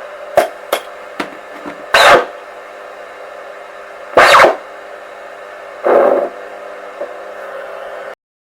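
Short-wave radio static: a steady hum and hiss with several held tones, broken by sharp crackles and three louder bursts of noise, cutting off abruptly just before the end.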